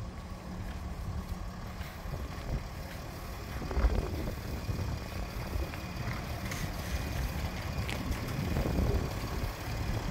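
Wind buffeting the microphone: an uneven low rumble with a few faint clicks.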